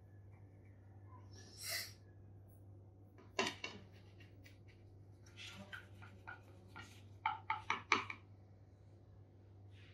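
Faint clinks and scrapes of cutlery as strawberry jam is spread on a slice of bread. There is a short scrape about two seconds in, then a few clicks, and a quick run of five or six sharp ticks about eight seconds in.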